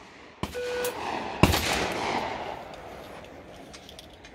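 A single shotgun shot at a clay target about a second and a half in, its echo dying away over about a second. Just before it come a lighter crack and a short beep.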